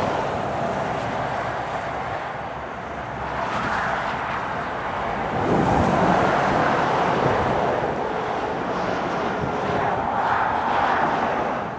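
Motorway traffic passing at speed, articulated lorries among it: a steady rush of tyre and engine noise that swells as vehicles go by, loudest about six seconds in and again near the end.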